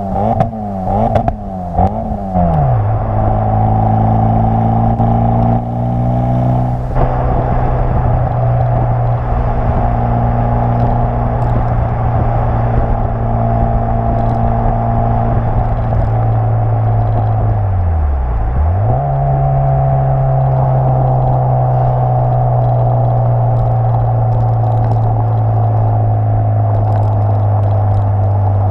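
Exhaust of a Renault Twingo GT with a rebuilt F4RT turbocharged 2.0-litre four-cylinder engine, heard from outside the car while driving. The revs rise and fall several times in the first few seconds, then the engine runs at a steady cruise; about 18 seconds in the revs drop sharply and climb back, then hold steady again.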